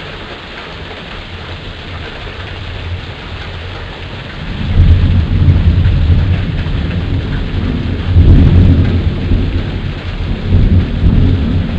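Steady hiss of rain and hail coming down on the driveway and yard. About five seconds in, a loud, long rumble of thunder rolls in and keeps going, swelling several times.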